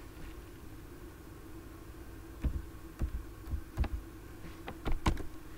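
Typing on a computer keyboard: about eight separate keystrokes, irregularly spaced, from about halfway in to near the end, over a faint steady hum.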